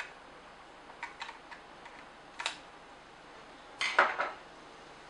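Light clicks and taps of a screwdriver working at the plastic casing of a Nikon SB900 flash during disassembly: a few soft clicks about a second in, a sharper click about two and a half seconds in, then a louder clatter of plastic and metal around four seconds in as the screwdriver is handled.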